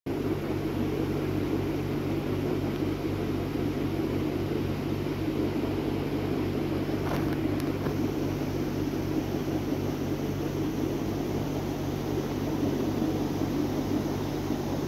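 A steady low machine hum with a low droning whir, unchanging throughout, with two faint clicks a little past halfway.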